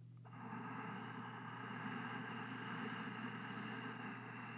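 Faint, steady mechanical noise setting in about a quarter second in and holding evenly, over a constant low electrical hum.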